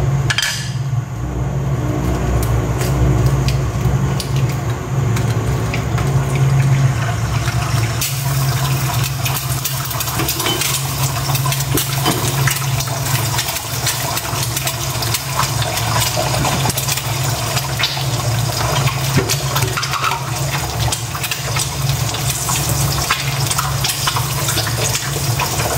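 An egg frying in hot cooking oil in a frying pan: a steady crackling sizzle that comes in loudly about eight seconds in.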